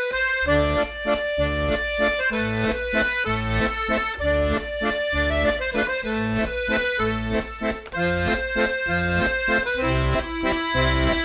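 Instrumental background music: sustained melody notes over a regular, bouncing bass line.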